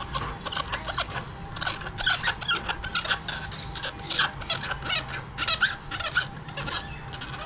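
Shoemaker's knife trimming the edge of a chappal sole: a quick, irregular run of short squeaky scraping strokes, over a steady low hum.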